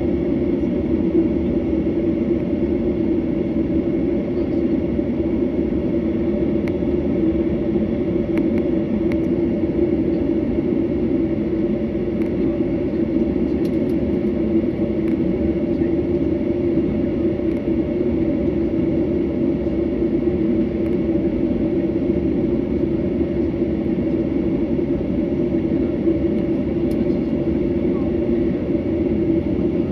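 Steady jet airliner cabin noise while taxiing: the engines running at idle give an even hum with a low rumble underneath.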